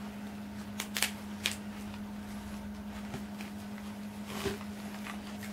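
Hands rustling through shredded-newspaper packing and handling a cloth snake bag in a cardboard box: a few short crackles about a second in and a softer rustle near the end, over a steady low hum.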